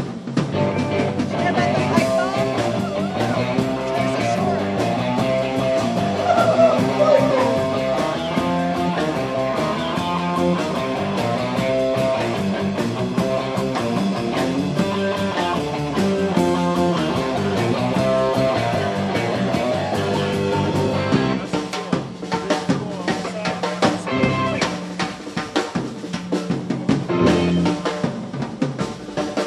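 Live band playing: electric guitar, bass guitar and drum kit. About 21 seconds in the held notes thin out and the drums carry on with sharp hits.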